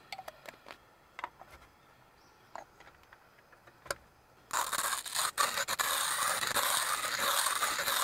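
A few light clicks, then from about four and a half seconds in a hand coffee grinder cranked steadily, its burrs crushing beans at a fine espresso setting with a continuous scraping grind.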